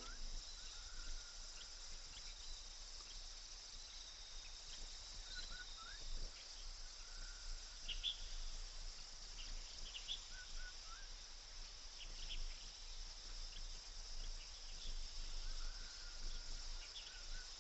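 Insects droning steadily in a grassy field, with a few brief high chirps scattered through.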